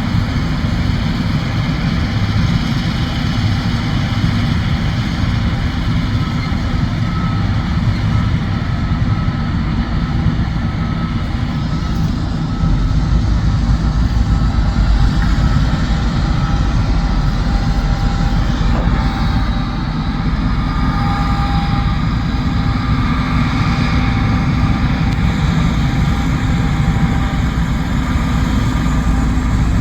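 John Deere S780 combine harvester running steadily while cutting wheat, a continuous low drone with a few faint steady whines above it. The low rumble grows louder about twelve seconds in.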